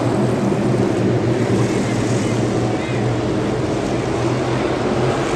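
A pack of NASCAR Cup Series stock cars' V8 engines running around the oval, a loud, steady drone with no big changes in pitch.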